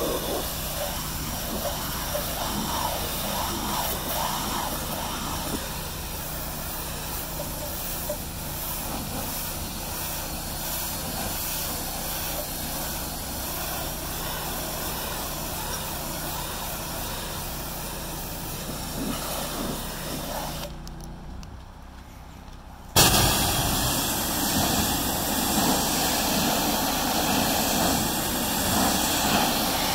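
Pressure washer spraying water against a truck's body: a steady rush of spray over the low hum of the washer's running motor. About three-quarters of the way through it drops away for a couple of seconds, then comes back suddenly louder.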